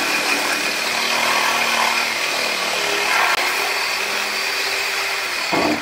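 Reciprocating saw cutting through a steel truck frame rail, running steadily with its blade rasping in the metal.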